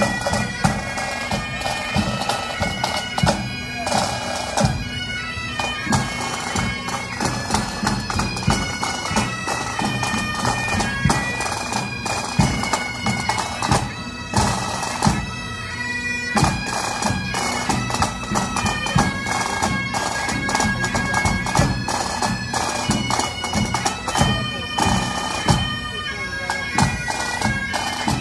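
Pipe band playing: Great Highland bagpipes sounding a melody over their steady drone, with snare and bass drums beating time throughout.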